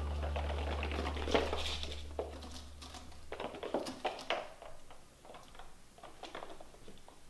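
Kittens' paws and claws pattering and skittering on a hardwood floor in quick, irregular taps, under the tail of fading background music.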